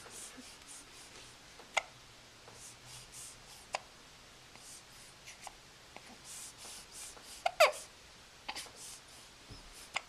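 Repeated hiccups, one about every two seconds, with soft breaths in between; the loudest hiccup comes about three quarters of the way through.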